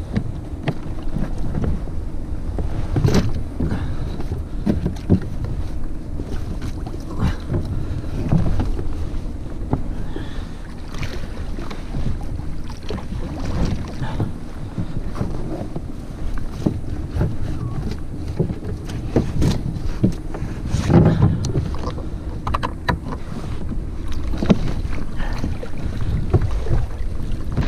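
Wind buffeting the microphone and water lapping against a plastic sit-on-top kayak's hull, with a few scattered knocks and clicks from the deck fittings.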